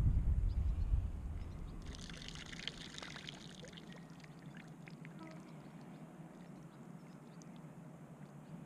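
Canned corn and its liquid poured from a tin into lake water: a splashing, pattering pour lasting about two seconds, starting about two seconds in, after a little wind on the microphone.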